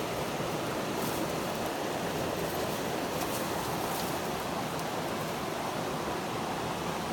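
Steady rush of flowing river water, an even noise with no change in level.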